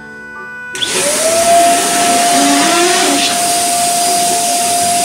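An electric balloon blower starts up about a second in, with a motor whine that rises in pitch and settles into a steady tone under a loud rush of air.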